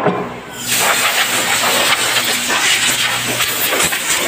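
Compressed air hissing loudly and steadily from a hose. It starts about half a second in and cuts off near the end. A short knock comes at the very start.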